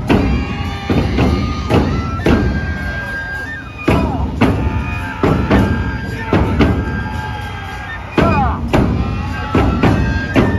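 Neputa festival hayashi: large taiko drums struck in a slow, uneven beat, with bamboo flutes playing long held notes over them.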